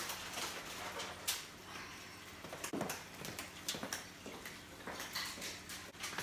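Aluminium foil crinkling and rustling as foil-covered roasting trays are handled, with irregular knocks of the trays and footsteps on a hard kitchen floor.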